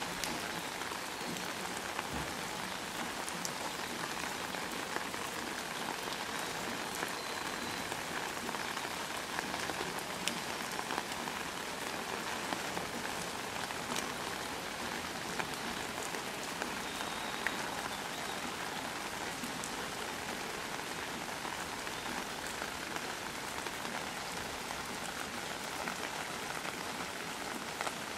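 Steady rain falling on wet pavement and puddles: an even hiss with now and then a sharper drop hit.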